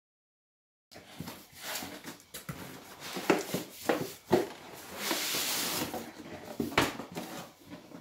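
After about a second of dead silence, a cardboard box and plastic packaging are handled: irregular scraping and rustling with several sharp knocks of the box flaps, and a longer hissing rustle about five seconds in.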